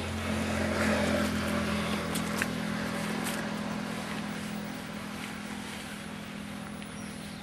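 A motor engine running steadily, loudest about a second in and then slowly fading, with a few faint bird chirps.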